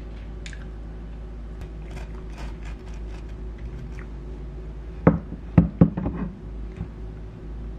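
A kitchen knife sawing through a loaf of banana bread on a wooden cutting board, with faint scraping and clicking. Three sharp knocks come about five to six seconds in, the loudest sounds.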